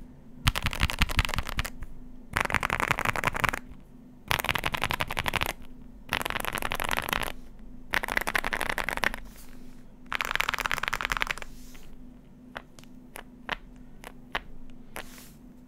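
Wuque Studio Promise87 mechanical keyboard with factory-lubed WS Aurora Clear switches, a PC plate and PBT keycaps: six quick runs of keystrokes, each a little over a second long, as fingers sweep along one row of keys at a time. After these, a handful of single key presses are heard near the end.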